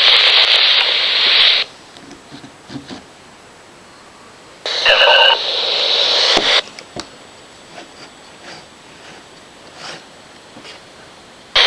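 Police scanner speaker hissing with radio static. A transmission's noisy tail cuts off after about a second and a half. After a few seconds of quiet comes a second burst of static, about two seconds long, with a brief high tone near its start.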